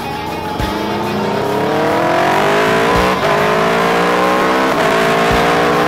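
Aprilia Tuono V4R's V4 engine pulling hard under acceleration, its pitch climbing steadily, with a brief drop about three seconds in at an upshift before it climbs again. Wind and road noise are heard from a camera mounted low by the front wheel.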